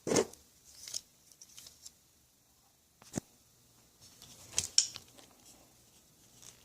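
Scissors snipping and handling clicks while cutting a hole in the two-sided tape of a bow-quiver mount: a handful of separate sharp snips and rustles, the loudest right at the start.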